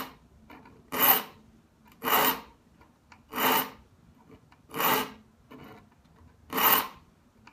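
A triangular saw file rasping through the teeth of a Lie-Nielsen rip-cut dovetail saw: about six short scraping strokes, a second or so apart, each pass sharpening a gullet.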